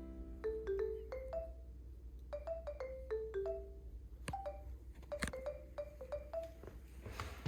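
Background music: a sparse, light melody of short struck notes that ring briefly and fade, with two sharp clicks about four and five seconds in.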